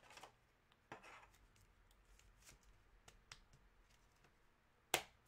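Faint rustling and light taps of trading cards and card packs being handled on a desk, with one sharp tap near the end.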